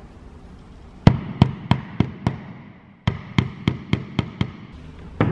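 Soft-faced mallet tapping a 5 mm insert into a hole in a plywood panel: a quick run of about five taps about a second in, then after a short pause another run of about six, some four taps a second.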